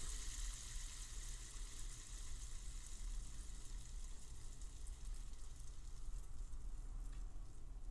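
Ganowo 3x3 spinner cube spinning freely on its two center caps between the fingertips: a faint, steady whirring hiss that slowly fades.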